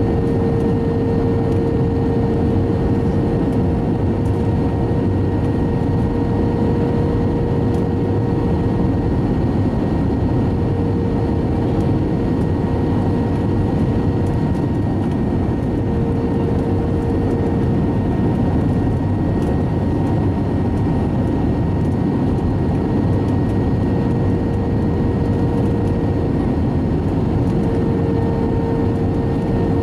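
Airbus A320 cabin noise on final approach: the steady roar of the jet engines and rushing air. A steady hum runs through it and swells and fades every few seconds.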